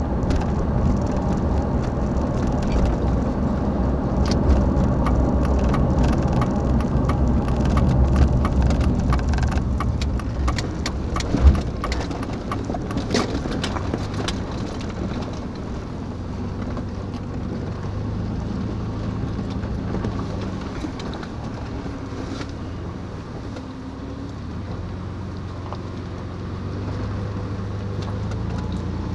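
A motor running steadily with a low hum, with clicks and rattles over it for the first half and one sharp knock about eleven and a half seconds in.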